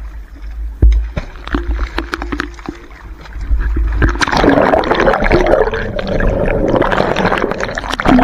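Seawater churning and gurgling, heard muffled through a submerged camera. There are scattered knocks for the first few seconds, then from about three and a half seconds in a louder, steady rush of bubbling water.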